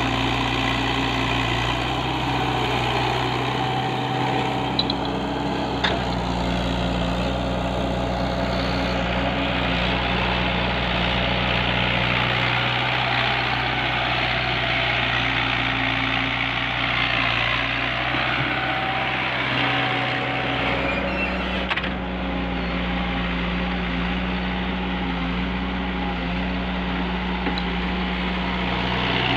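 Mini excavator's diesel engine running steadily, its note shifting up and down as the machine works, with two short sharp knocks about five and six seconds in.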